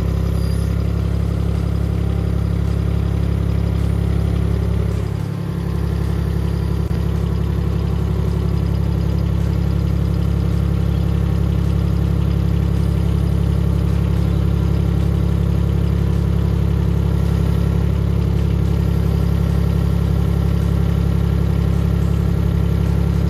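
A HAIHONG CTX8010 mini excavator's engine idling steadily, with a brief dip in loudness about five seconds in.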